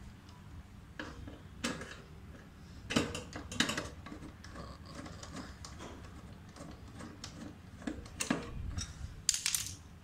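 Metal clinks and clatter from a screwdriver, screws and a galvanized steel bracket being unscrewed and handled at the back of a refrigerator's compressor compartment. A few sharp clinks are scattered through, the clearest about three and eight seconds in.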